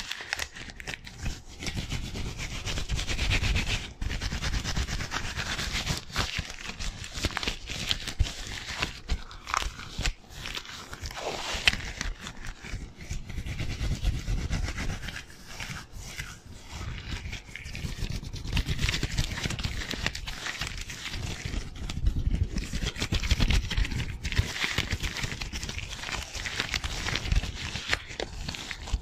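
Disposable-gloved hands rubbing and rustling fast and hard close to a microphone: a continuous rubbing noise full of sharp crackles and clicks.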